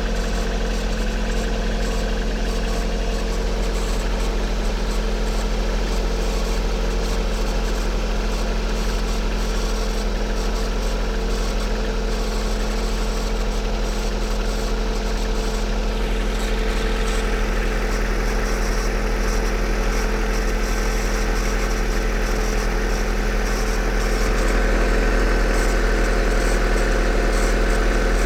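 Lada car engine idling steadily, with a steady whistle from the alternator belt tensioner pulley. The sound gets a little louder in the last few seconds.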